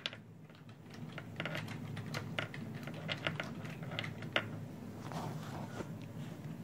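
Computer keyboard keystrokes, a run of short irregular clicks as a short command is typed, over a faint steady low hum.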